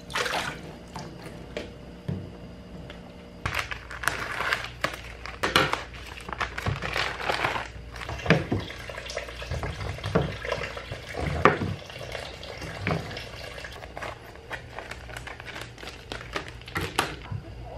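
Kitchen tap water splashing briefly into a bowl in a sink, then plastic packaging crinkling and rustling in irregular bursts as meal-kit packets and a vacuum-sealed plastic pack are handled.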